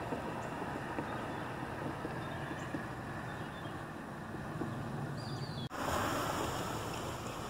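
Steady outdoor ambience: wind on the microphone over a low rumble of road traffic. A short high chirp comes just before an abrupt cut about five and a half seconds in, after which the hiss is brighter.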